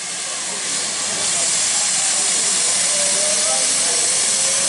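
Steam hissing steadily from BR Standard Class 4 tank locomotive 80097, growing louder about a second in and then holding.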